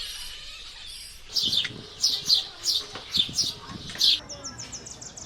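A bird chirping: about eight sharp, high chirps over a few seconds, then a fainter, quicker run of very high notes near the end.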